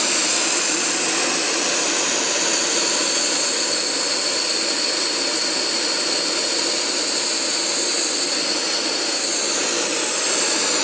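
Optimus Crux canister gas stove burning at full throttle under a pot of water heating toward a boil: a steady, loud rushing hiss of gas and flame.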